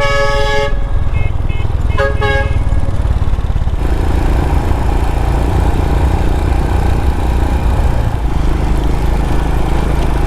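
A vehicle horn toots twice, briefly, at the start and again about two seconds in, over the steady rumble of a motorcycle riding with wind on the microphone. About four seconds in, the riding noise turns fuller and rougher.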